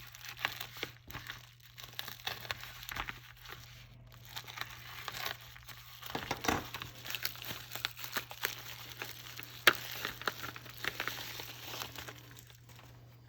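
Tool packaging being opened by hand: irregular crinkling, crackling and tearing, with a sharp snap about ten seconds in.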